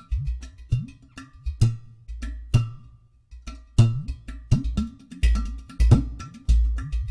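Ceramic hadjini hand drum played in a free, syncopated rhythm: sharp slaps on the clay mixed with deep booming bass notes that bend in pitch. There is a brief pause about three seconds in.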